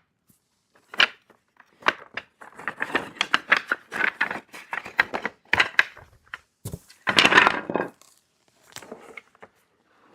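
Small cedar wood hive pieces clicking, knocking and clattering against each other as they are scooped out and set down, with a louder clatter near the end.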